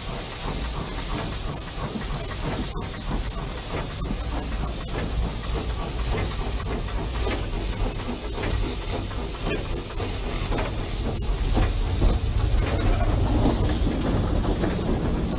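Steam locomotive starting away, heard from the cab: a steady hiss of steam from the open cylinder drain cocks, which let the water out of the cylinders, over a low rumble that grows louder as the engine gets moving.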